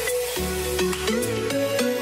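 Electronic background music: a melody of held notes over a bass line, with light percussion.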